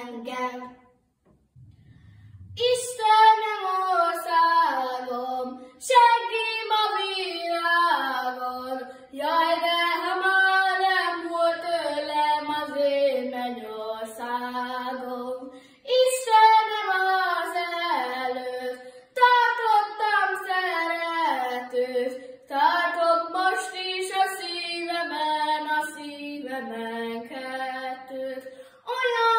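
Children singing a Hungarian folk song of the Gömör charcoal burners, in phrases with short breaths between them; after a brief pause about a second in, a new verse begins.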